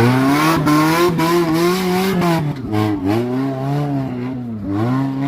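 Off-road vehicle's engine revving hard under load, its pitch rising and falling as the throttle is worked, with a few quick dips as the revs drop and pick up again.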